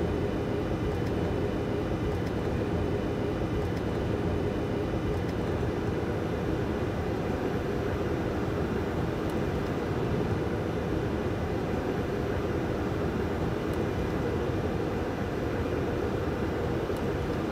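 Steady flight-deck noise of a Boeing 747-400 descending on approach: an even, low rush of airflow and engine hum that holds constant throughout.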